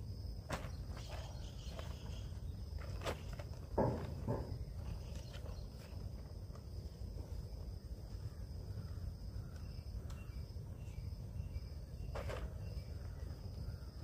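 A steady high insect drone, with a few soft rustles and footsteps on grass, the loudest about four seconds in.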